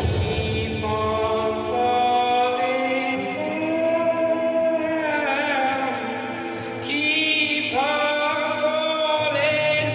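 A song plays with long, held sung notes that slide between pitches in several layered voices, over a deep bass.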